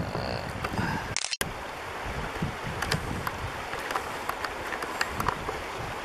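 Steady outdoor noise of wind on the microphone and water at the shore, with scattered small clicks and a brief break in the sound about a second in.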